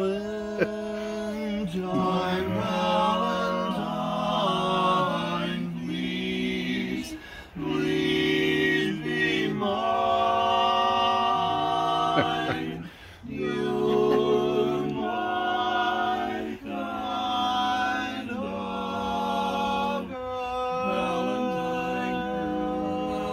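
Male vocal quartet singing a cappella in close harmony: held chords sung in phrases with brief pauses between them.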